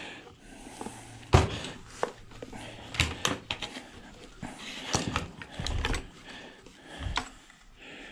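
Scattered clicks and knocks of hand tools and metal parts being handled while an ice maker is taken apart, the sharpest knock just over a second in.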